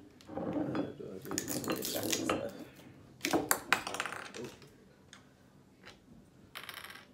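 Plastic film wrapper rustling and plastic cap parts clicking as the top of a Ramune soda bottle is unwrapped and the cap removed, then a few sharp clicks and knocks of the glass bottle and plastic pieces on the table.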